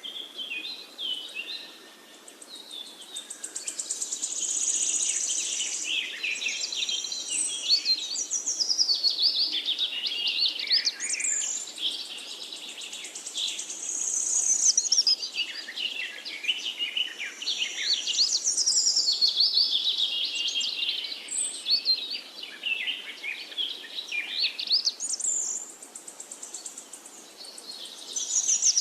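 Several birds singing at once: a dense, overlapping chorus of high chirps and quick trills that swells and eases every few seconds without a break.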